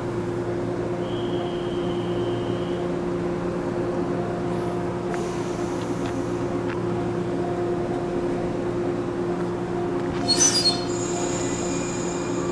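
Shinano Railway 115-series electric train standing at a platform, its onboard equipment giving a steady electrical hum. About ten seconds in, a short shrill whistle sounds in three quick pulses, signalling the departure.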